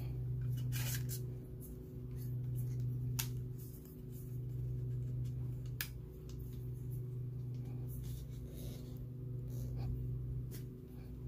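Scattered clicks and knocks of a folding tripod being handled as its legs are spread and its centre column worked, over a steady low hum.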